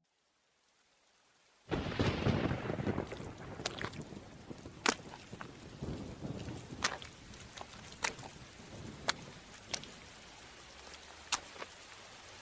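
A thunder and rain sound effect. A sudden clap of thunder comes about two seconds in and rumbles away, then steady rain follows with scattered sharp drips.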